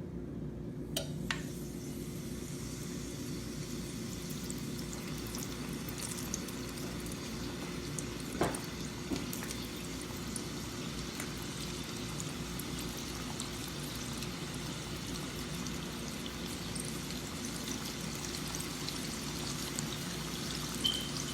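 Flour-coated chicken tenders frying in hot oil in a frying pan: a steady sizzle that fills in about a second in as pieces go into the oil, with a few light clicks as more strips are laid in.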